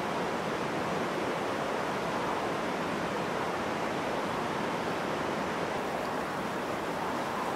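Steady rush of flowing river water, an even hiss-like noise that does not change.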